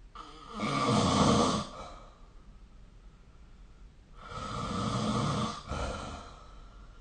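A sleeping person snoring: two snores, each lasting about one and a half to two seconds, roughly three and a half seconds apart.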